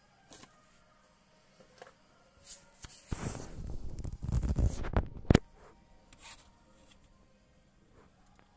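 Handling noise: a couple of seconds of rustling and rumbling partway through, ending in one sharp click, with a few faint ticks before and after.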